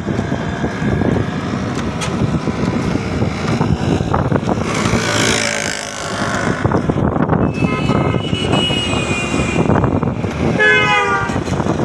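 Traffic noise heard from a moving motorcycle on a truck-lined highway: steady road and wind rumble, with a vehicle rushing past about five seconds in. A vehicle horn sounds with a steady tone about eight seconds in, and a horn with a bending pitch blares about a second before the end.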